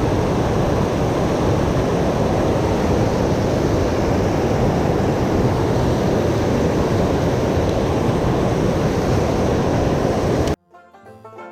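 Steady loud rushing outdoor noise, cut off abruptly about ten and a half seconds in, when banjo music begins.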